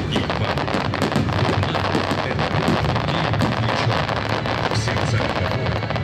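Aerial firework shells bursting in a barrage: a dense crackle of many rapid pops over a continuous low rumble.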